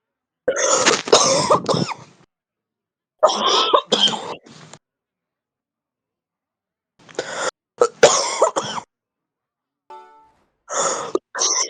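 Heavy smoker's cough: four harsh, chesty coughing bouts of one to two seconds each, separated by silent gaps. A brief faint tone comes shortly before the last bout.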